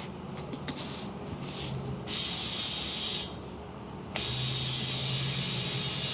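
Compressed air hissing into a car tire through an inflator, in stop-and-start spells: the hiss stops about three seconds in and starts again a second later with a sharp click, a low steady hum running under it.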